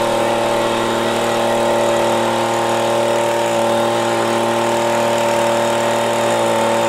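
Leaf blower running at a steady speed, an even drone with a rush of air.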